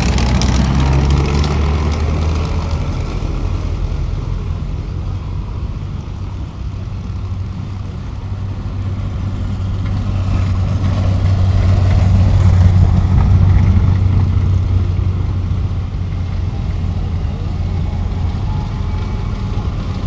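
Engines of WWII German military vehicles driving past one after another on a dirt track: a VW Kübelwagen at the start, then an Sd.Kfz.251 half-track. The steady low engine drone is loudest about twelve seconds in, as the half-track passes closest.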